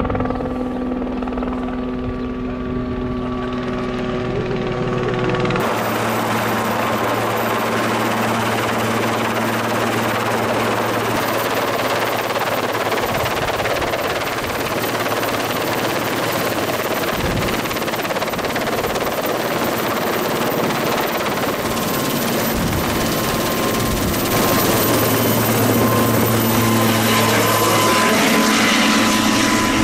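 A vehicle engine running steadily with an even hum. About five seconds in, a loud steady hiss joins it and lasts to the end.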